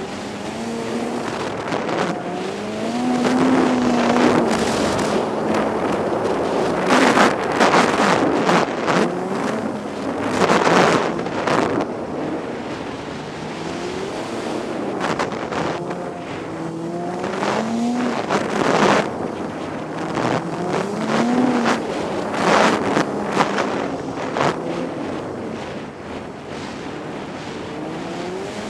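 1998 Polaris Indy XC 600 snowmobile's two-stroke twin engine running while riding a trail, heard from the rider's helmet, its pitch rising and falling several times as the throttle opens and eases off. Bouts of loud rushing noise swell in the middle and again later.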